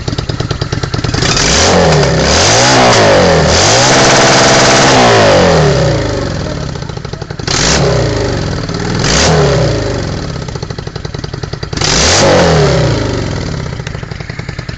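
Honda Shadow 600 V-twin motorcycle through a new loud aftermarket exhaust, idling and being revved. It rises twice quickly and is then held high for a couple of seconds before falling back to idle. Three short throttle blips follow.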